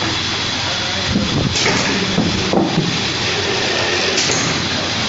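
Spiral paper tube winding machine running with a steady mechanical whir and hiss. A few louder knocks and clatters come between about one and three seconds in.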